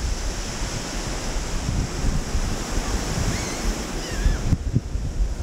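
Small waves washing onto a sandy beach, with wind buffeting the microphone in low, gusty rumbles.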